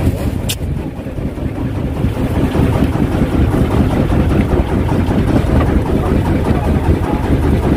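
Engine of a wooden fishing boat running steadily under way, a dense low rumble, as the boat moves to a new fishing spot.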